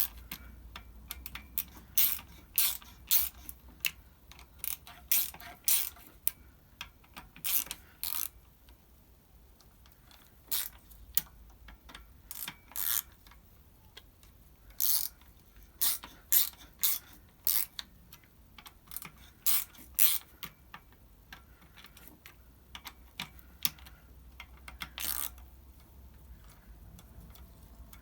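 Small ratcheting hand tool clicking in short bursts, with pauses between, as the clutch spring bolts on a motorcycle's pressure plate are wound in until they bottom out.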